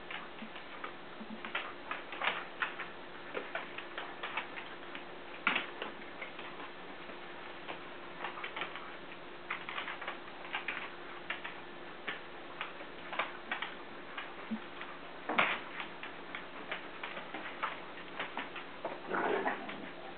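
Dogs' claws clicking and scrabbling on a hard floor as two dogs play-wrestle: irregular sharp ticks throughout, with a longer, louder scuffle near the end.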